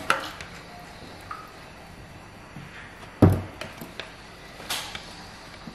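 A metal spoon tapping and scraping on raw lamb chops in a disposable aluminium foil pan as garlic is spread on them: scattered light clicks and knocks, with one louder thump about three seconds in.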